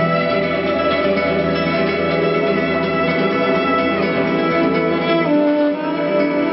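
Instrumental music: string instruments playing long held notes, with a change of notes a little after five seconds in.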